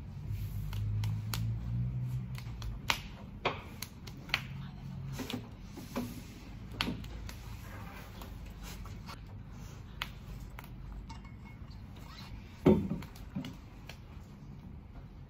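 Quiet room with scattered light taps and clicks of hands and fingers on a table, over a low hum that fades after the first few seconds. Near the end comes one louder thump.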